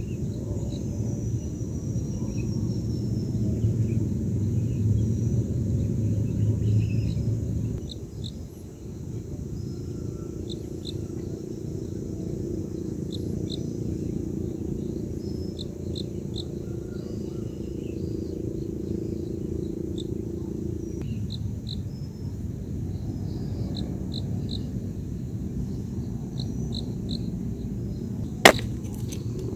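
Outdoor ambience: a steady low rumbling noise, louder for the first eight seconds or so, with faint insect chirps scattered throughout and a single sharp click near the end.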